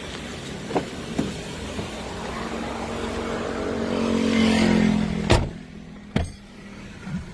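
Turbocharged Ford 2.2 four-cylinder diesel idling, a steady hum that grows louder toward the driver's door. The door slams shut about five seconds in, after which the engine is heard muffled from inside the cab. A second sharp knock comes about a second later.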